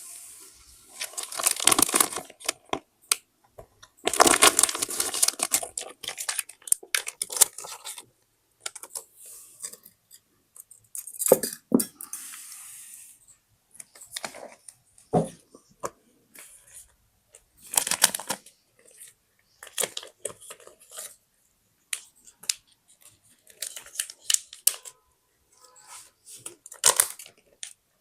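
Paper being handled for a scrapbook: sheets and scraps rustled and rubbed in several stretches, the longest about a second in and again about four seconds in, with many short taps and clicks between.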